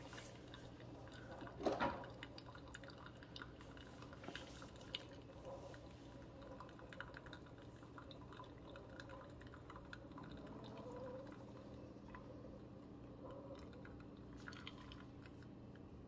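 Keurig K-Supreme Plus brewing over ice: hot coffee trickling into a glass of ice and milk, with the ice crackling and popping in many small clicks and drips over a low steady hum. A soft knock about two seconds in.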